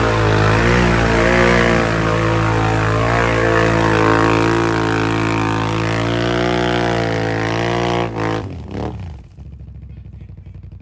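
Can-Am Outlander ATV engine held at high revs as the machine churns through deep mud with its tyres spinning. About eight seconds in, the revs fall away sharply and the engine settles to a quiet, pulsing idle as the ATV sits bogged in the mud hole.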